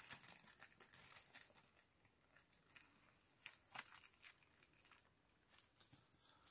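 Faint rustling of stamped paper and a strip of masking tape being handled and pulled free, with a couple of light ticks about three and a half seconds in.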